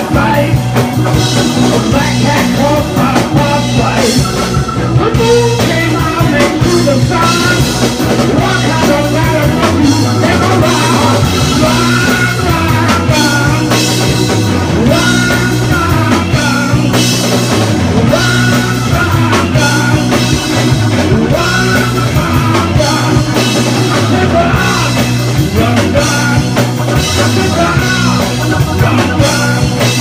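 Live rock band playing: a man singing into a handheld microphone over electric guitar and drums.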